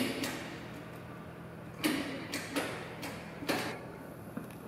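Metallic clicks and clunks, about five in all, as the drill head of a MAS VRM 50 radial drilling machine is worked by hand at its levers and moved along the arm, over a low steady hum.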